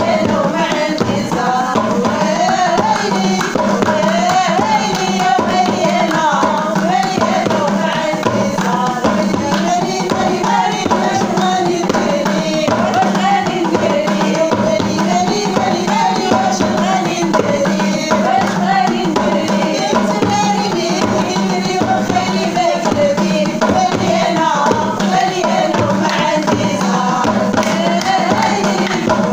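Singing over hand drums and tambourine-style percussion in a steady, continuous rhythm, with the sung melody wavering up and down.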